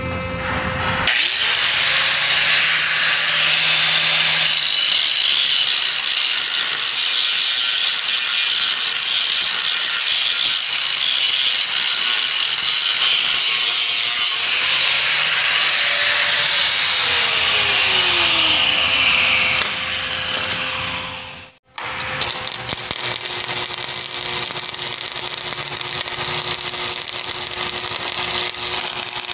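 Angle grinder grinding a steel pipe post, starting about a second in, then spinning down with a falling whine. After a break, the steady crackle of arc welding on the same post.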